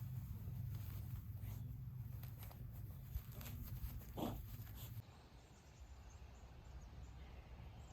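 Faint scuffling and clicking of a small dog playing excitedly, with one short cry about four seconds in.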